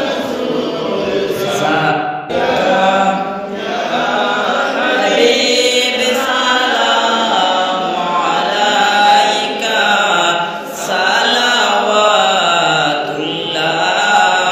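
A man chanting a milad sharif, a devotional recitation in praise of the Prophet, in long, wavering held notes. He pauses briefly between phrases twice.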